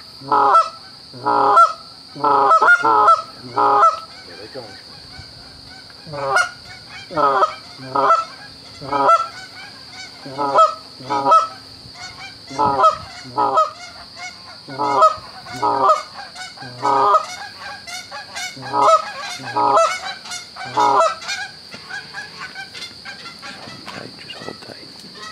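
Canada geese honking: a long run of short, loud honks, about one or two a second with irregular gaps, that thins out and stops about 22 seconds in. A faint steady high whine runs underneath.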